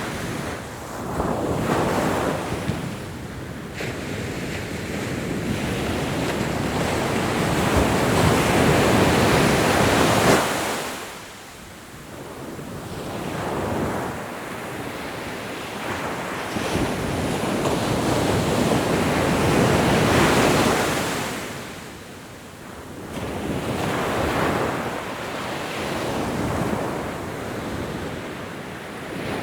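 Ocean waves breaking and washing up a shore, the surf swelling and falling back about every ten seconds.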